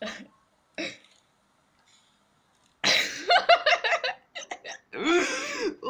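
A young person's voice: two short faint sounds, then a sudden loud, breathy outburst about three seconds in, followed by quick choppy vocal sounds and a longer drawn-out one.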